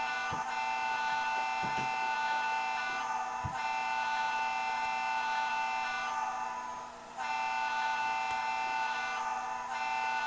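Simulated diesel switcher engine sound from an MRC 1662 sound-only decoder, played through a small speaker: a steady, buzzy hum that dips briefly about seven seconds in. A few faint clicks of N scale wheels running over the track come in the first few seconds.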